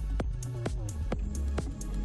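Electronic dance music with a steady beat of about two strokes a second over heavy bass.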